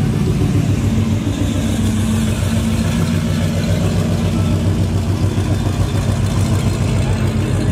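An engine running steadily at idle: a continuous low drone that holds its pitch, with no revving.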